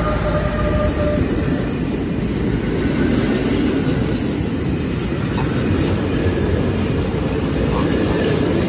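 Freight train of container flat wagons rolling past: a steady, loud rumble of steel wheels on the rails with occasional clatter from the wagons. An electric locomotive's whine dies away in the first second as the locomotive clears.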